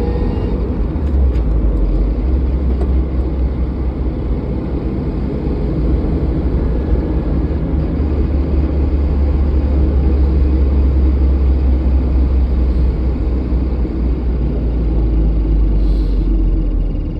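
A vehicle being driven: a steady, loud low rumble of engine, drivetrain and road noise. No clear squeal stands out over the rumble.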